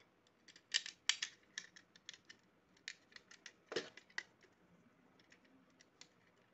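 Irregular light clicks and taps of white plastic parts being handled and pressed together as a 5-pin socket and switch are fitted into a plastic switch board, loudest about a second in and again near four seconds.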